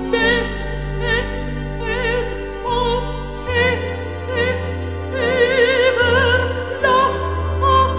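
Slow, operatic-sounding music: a sung melody with wide vibrato over long held low notes, the bass moving down to a deeper note about three and a half seconds in.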